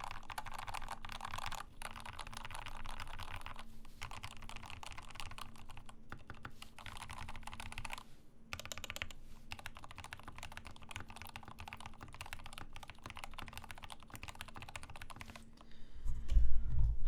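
Rama M65-B mechanical keyboard being typed on in quick, continuous strings of keystrokes, muted in sound, with a few brief pauses.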